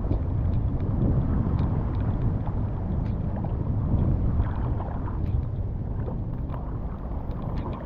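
Wind noise on the microphone over choppy water, a steady low rush, with a few faint scattered ticks.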